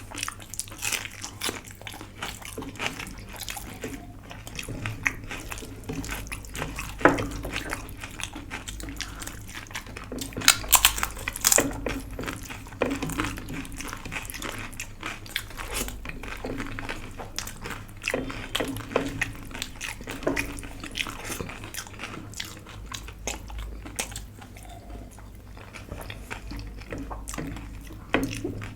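Close-up eating sounds: chewing and crunching of a home-cooked Indian meal of rice, dal and vegetables, with scattered sharp clicks and a few wet, sloppy sounds.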